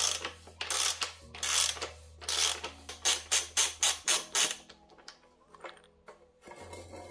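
Splined bottom bracket tool turning a threaded bottom bracket cup in the frame's shell: a quick series of rasping, ratcheting metal strokes, about three a second, then a few lighter clicks as the tool is worked off the cup.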